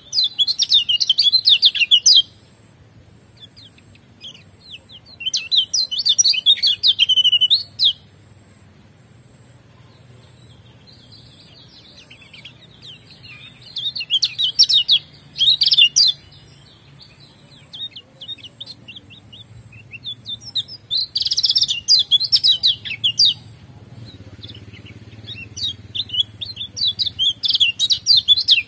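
Yellow white-eye (kecial kuning) singing in bouts of rapid, high twittering, each a few seconds long, with short pauses between them.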